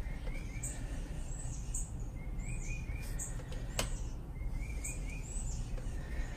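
Small birds chirping repeatedly over a steady low background rumble, with one sharp tap about four seconds in.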